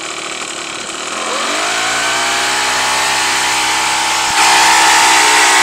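Hangkai 3.6 hp two-stroke outboard motor revving up from idle about a second in and holding at a higher speed, with a further jump in loudness a little past halfway. A small amount of throttle is what gets its cooling water pumping out.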